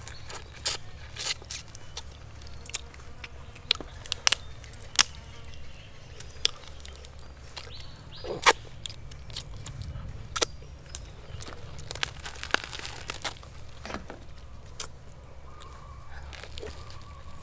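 Scattered sharp clicks and taps, about a dozen at irregular intervals, over a steady low background rumble.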